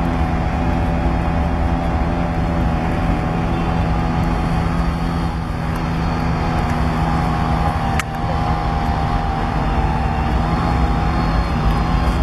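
Small outboard motor pushing a folding fishing boat along, running steadily at cruising speed. A single sharp click about eight seconds in.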